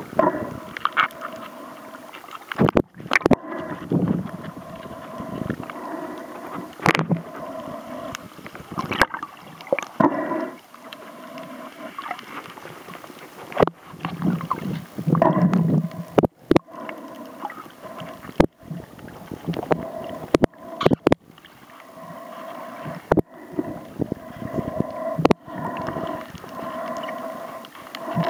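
Muffled underwater sound through a waterproof camera housing: water rushing and sloshing, with a steady hum that comes and goes. Sharp knocks and brief cut-outs recur throughout.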